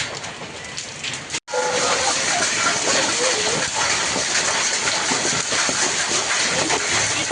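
Heavy rain pouring down, a steady dense hiss; it cuts out for an instant about a second and a half in and comes back louder.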